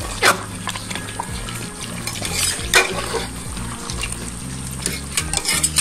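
Pieces of mutton frying down in a thick spiced sauce in a metal pot, stirred with a metal spatula that scrapes and clinks against the pot several times.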